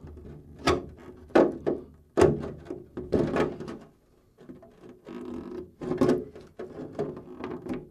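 Small curved scissors snipping through a clear polycarbonate RC truck body along a score line: a series of sharp snips and plastic crackles, with a short pause about halfway.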